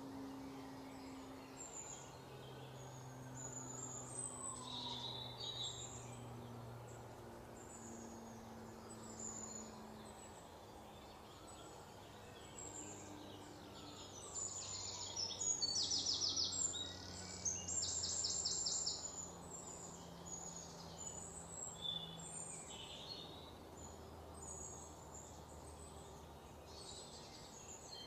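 Forest ambience with birds chirping and calling on and off. A rapid, pulsing trill is loudest about halfway through. A soft low drone of shifting tones runs underneath.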